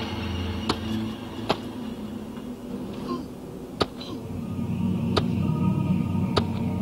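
Five sharp snaps or clicks at irregular intervals, roughly a second or more apart, over a low steady rumble.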